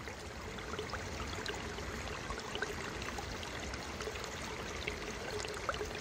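Water welling up and bubbling in a shallow spring over rock: a steady wash of running water with scattered small splashes.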